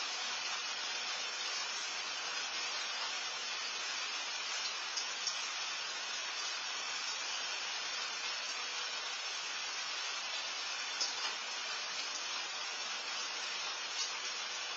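Steady, even background hiss from a night-time security camera's microphone, with a few faint brief ticks.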